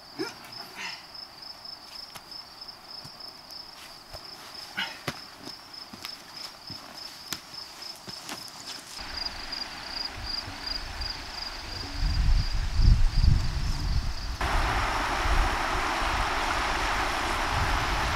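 An insect trills steadily on one high, rapidly pulsing note. From about nine seconds in, wind rumbles on the microphone, strongest around twelve to fourteen seconds. At a sudden change about fourteen seconds in, the trill stops and a steady hiss of wind and moving water takes over.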